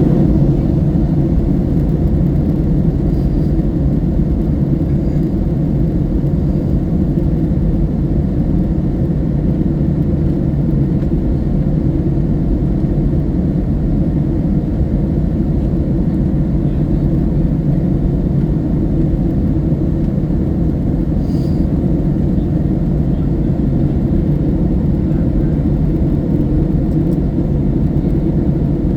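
Steady low rumble of a Boeing 757-200 airliner, unchanging throughout.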